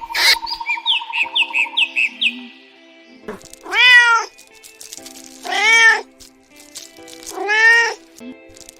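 Domestic cat meowing three times, each meow rising and falling and lasting just under a second, over light background music with short chirping sound effects near the start.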